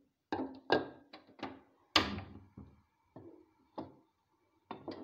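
Wooden spoon knocking and scraping against a metal cooking pot while stirring lentils and potatoes, with about ten irregular clattering knocks, the loudest about two seconds in.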